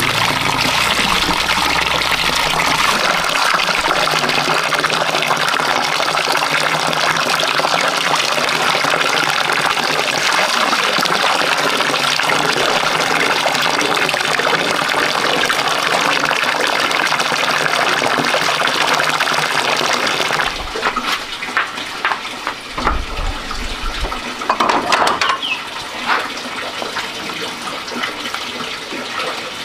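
Water pouring steadily from a tap into a plastic basin while halved bitter melons are washed by hand in it. About two-thirds of the way through, the pouring stops and gives way to quieter, scattered knocks and rustles of handling.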